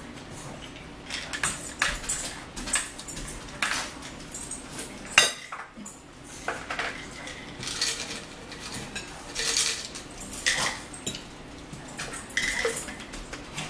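Cutlery and dishes clinking at a dinner table: a scattered string of light clicks and clatters, with one sharp knock about five seconds in.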